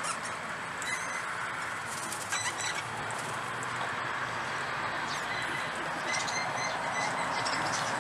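Birds chirping in two quick runs of short, high notes, over a steady background rush.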